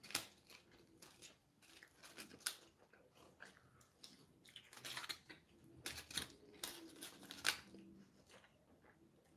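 Paper food wrapper crinkling in short, scattered crackles as a burger and fries are handled, with quiet chewing.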